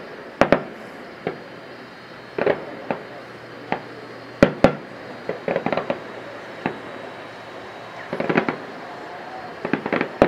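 Aerial firework shells bursting in the distance: a string of sharp bangs at irregular intervals, some single and some in quick crackling clusters.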